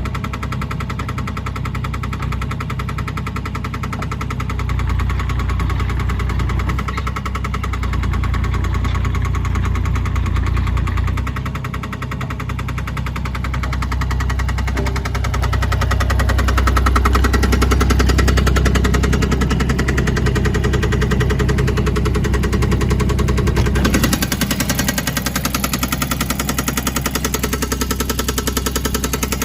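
Cat 303.5C CR mini excavator's diesel engine running with a steady, knocking clatter. Its level swells and eases, and about four-fifths of the way through the sound shifts suddenly, with less low rumble and more high hiss.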